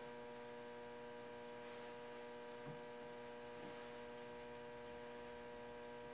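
Faint, steady electrical mains hum, with two soft light taps about a second apart near the middle.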